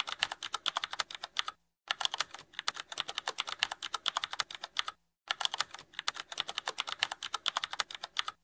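Keyboard typing sound effect: rapid key clicks, many a second, broken by two short pauses, about a second and a half in and about five seconds in.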